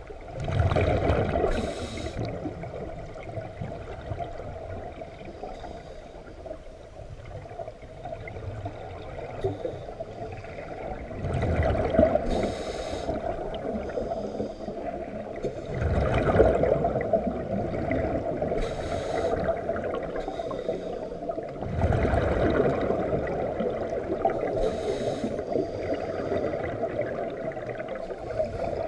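Scuba diver breathing through a regulator underwater: exhaled air bubbles out in four loud gurgling bursts several seconds apart, each with a brief hiss from the regulator.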